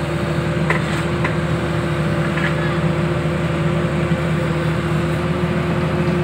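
Engine and hydraulics of a horizontal directional drilling rig running steadily, with a constant hum, and a few faint clicks in the first couple of seconds.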